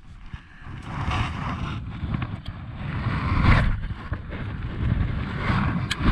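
Wind buffeting the camera's microphone and jacket fabric rustling against it: an uneven rumble that swells in surges about a second in, around the middle, and near the end.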